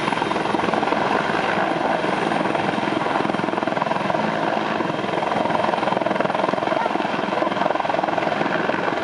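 Helicopter hovering low over water, its rotors beating in a steady, dense chop.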